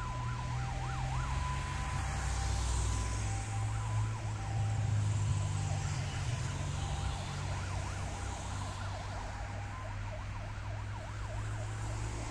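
Fire engine sirens, faint under a steady low rumble of road traffic. The sirens switch between a two-tone hi-lo and a fast rising-and-falling yelp, and grow fainter near the end.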